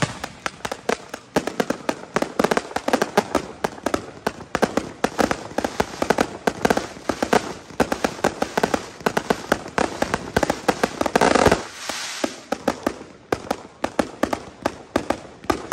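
A fireworks display with a dense run of sharp pops and bangs from bursting aerial shells and crackling stars. One louder, longer blast comes about eleven seconds in.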